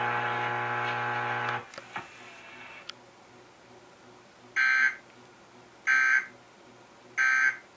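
Emergency Alert System end-of-message signal: a steady buzz that stops about a second and a half in, then three short, identical digital data tones about a second apart, which mark the end of the alert.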